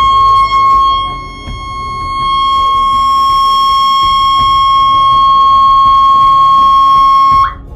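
A 12 V TS-333S siren speaker sounding in its steady-tone mode: one continuous loud, high-pitched tone that dips in loudness briefly about a second in, then cuts off suddenly near the end.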